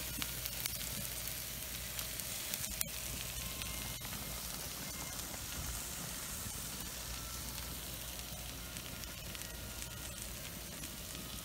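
Chicken breasts sizzling on a grill grate over a hardwood fire: a steady hiss with fine crackles from the food and the embers.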